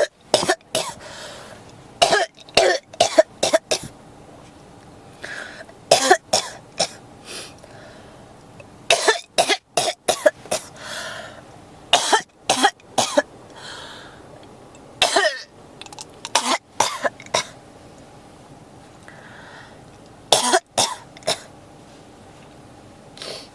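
A person coughing in repeated fits: bouts of one to five sharp coughs, with pauses of a second or more between bouts.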